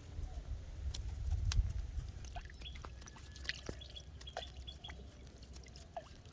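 Outdoor ambience: a low rumble, scattered sharp clicks, and a short run of brief, high bird chirps near the middle.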